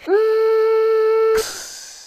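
A voice humming one long note, scooping up into pitch at the start and holding it steady for about a second and a half, then ending in a short hiss and fading away.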